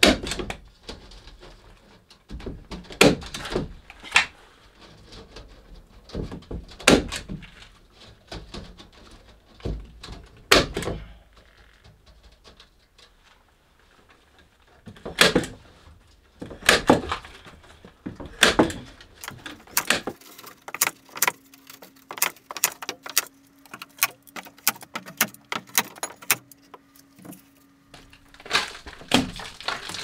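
Carpentry work on OSB wall boards: sharp knocks and thuds every second or few, the wood struck and fitted by hand. About two-thirds of the way in comes a quick run of many light taps over a faint steady hum, and a few more knocks close the stretch.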